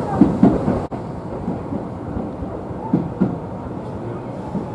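Tobu Utsunomiya Line local train running slowly into a station, heard from inside the front car: a steady low rumble with a few clunks and clatters from the running gear, briefly dropping out just under a second in.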